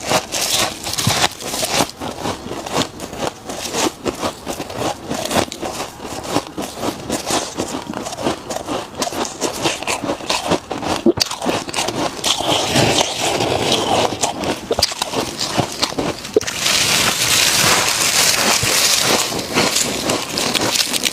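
Freezer frost being bitten and chewed close to the microphone: a dense run of crackling crunches, with a steadier, denser crunching stretch near the end.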